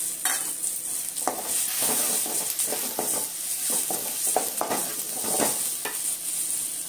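Wooden spatula stirring and scraping onions, tomatoes, garlic and freshly added chilli powder around a metal kadai, in irregular strokes over a steady oil sizzle.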